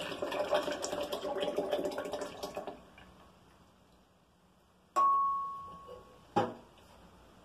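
Evaporated milk poured from a can into a glass blender jar: a splashing, gurgling stream that stops about three seconds in. About two seconds later comes a sharp clink with a brief ringing tone, then a duller knock.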